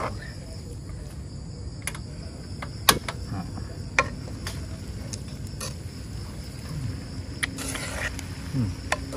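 Stainless steel tongs clicking and scraping against a non-stick wok as spaghetti with prawns is tossed, with a few sharp clicks, the loudest about three seconds in. Behind it, a steady high chirring of crickets.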